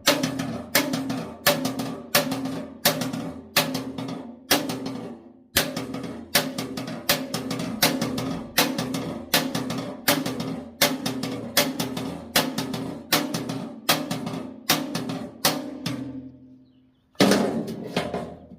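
Hammer blows on sheet steel, about two to three a second, each with a short metallic ring, as a bent panel is straightened between a backing hammer and a smaller striking hammer. There is a brief pause near the end before one more blow.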